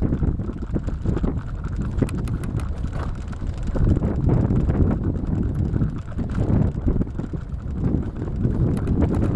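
Wind rushing over the microphone during a bicycle ride, with scattered light clicks and rattles from the bike, a cluster about two to three seconds in and another near the end.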